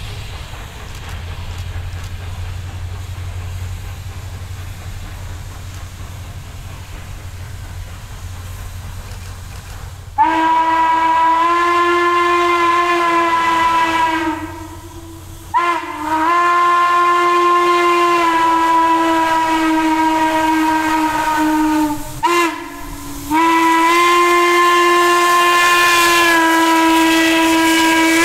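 Western Maryland 1309's steam whistle, a chord of several notes, blowing loud long blasts as the 2-6-6-2 articulated steam locomotive comes past. A low steady rumble comes first; the whistle opens about ten seconds in, breaks off briefly twice with a short toot between, and is still sounding at the end.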